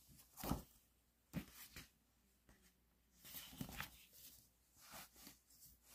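Near silence, with a few faint, brief rustles and taps from cardboard record packaging being handled.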